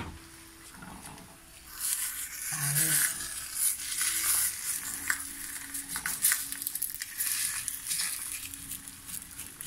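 Fried eggs sizzling in a frying pan while a spatula scrapes and pushes under them to free them where they have stuck to the pan. The sizzling and scraping start about two seconds in.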